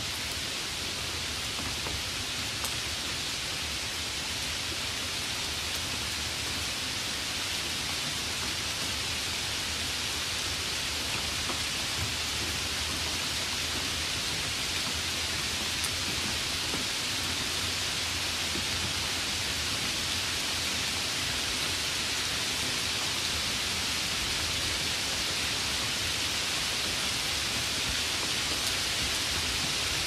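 Steady rain, an even unbroken hiss with a few faint ticks of individual drops.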